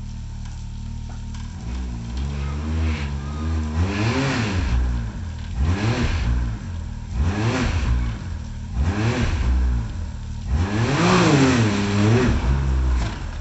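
Can-Am Maverick X3 side-by-side's turbocharged three-cylinder engine idling, then revved in repeated bursts from about two seconds in, each rising and falling in pitch, as it crawls over rocks under load.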